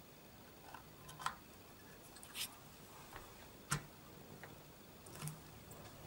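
A desktop RAM module pressed into a motherboard memory slot, with a few faint clicks as it seats and the slot's retention latches snap shut, plus a short scrape; the sharpest click comes a little past halfway.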